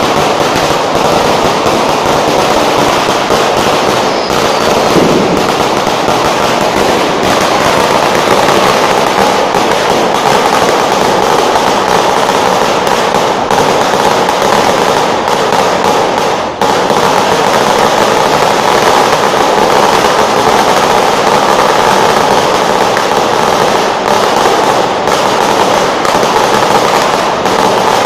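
Firecrackers going off in a dense, continuous crackle of rapid bangs.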